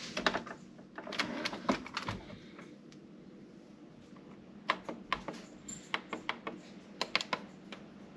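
A scattering of sharp clicks and taps from handling a Keurig single-serve coffee maker and pressing the buttons on its control panel, in small clusters with short pauses between.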